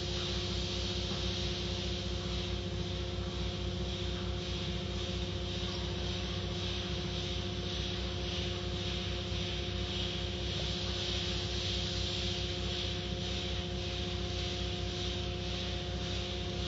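Steady machine hum with a low throb and an even hiss above it, keeping the same level throughout.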